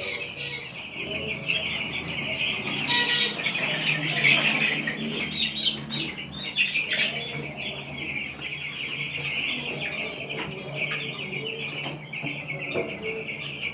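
A brooder full of young broiler chicks peeping continuously, many high calls overlapping, with a brief noisy burst about three seconds in.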